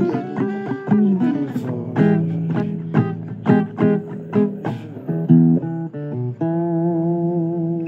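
Blues guitar playing an instrumental passage: a run of single plucked notes and short chords, then a note held with a slight waver for the last second and a half.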